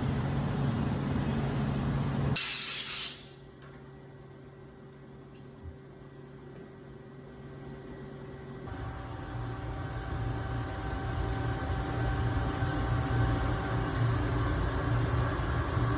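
Steady machine hum, broken about two and a half seconds in by a short loud hiss of spraying air. The hum then stops abruptly and the noise slowly builds back up over the rest.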